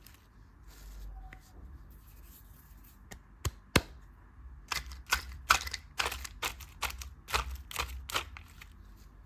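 Sharp taps and clicks of small hard objects, such as candy or plastic pieces, being handled: two single clicks, then a quicker run of about a dozen.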